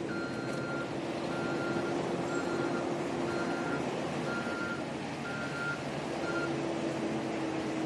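A heavy vehicle's reversing alarm beeping about once a second, seven beeps, stopping near the end, over steady engine noise.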